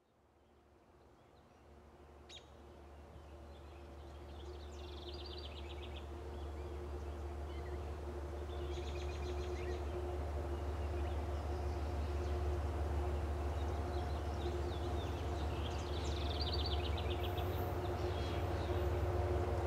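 Approaching Amtrak train's GE P32AC-DM diesel locomotives, heard as a distant low rumble with a steady hum that grows louder. A songbird's short trilling calls repeat over it every few seconds.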